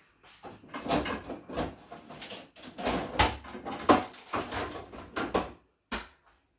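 Kitchen handling noise from someone rummaging off to the side: a quick, irregular run of knocks, clatters and rustles that stops about a second before the end, with one last click.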